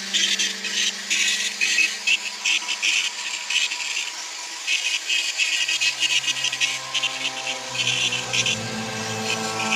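Dremel rotary tool with a fine carving bit grinding into MDF, a high-pitched hiss in rapid, irregular bursts as the bit touches and lifts off the surface. Background music comes in under it near the end.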